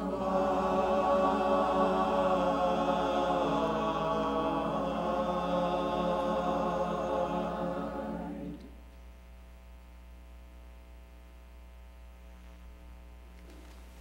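Church choir singing, ending on a held chord that cuts off about eight and a half seconds in; after that only faint room tone.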